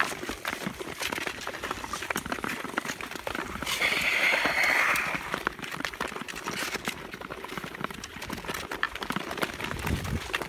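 Tour skate blades gliding and scraping on natural lake ice, with frequent sharp clicks and taps of blades and ice-pole tips on the ice. About four seconds in, a louder scraping hiss lasts a little over a second.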